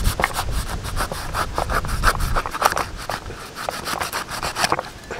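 A broad knife scraping against the skin of a whole batfish on a wooden cutting board, in quick, irregular strokes several times a second that thin out after about three seconds.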